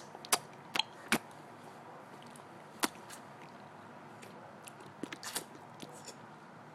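A child making sharp clicking mouth noises, tongue clicks, in short irregular runs: four in the first second or so, a lone one a little before three seconds in, then a quicker cluster about five seconds in.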